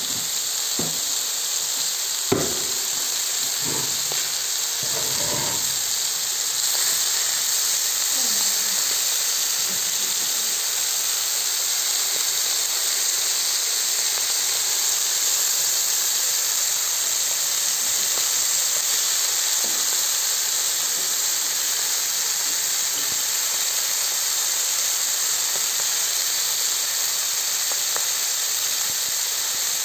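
Sausages sizzling in oil on a hot flat steel saj griddle, a steady high hiss. A few sharp clicks come in the first few seconds.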